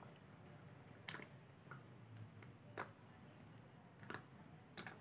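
Homemade baby-powder slime being squeezed and kneaded by hand in a glass bowl, giving four short, faint squishy pops.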